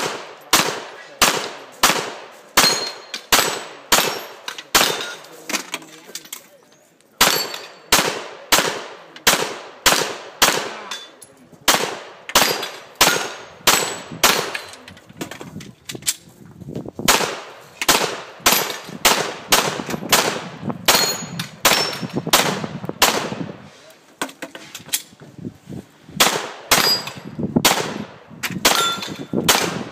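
Glock 34 9mm pistol fired in quick succession at steel plate targets, about two shots a second, with the steel ringing with a clang after hits. The firing pauses for about a second near six seconds in, then runs on.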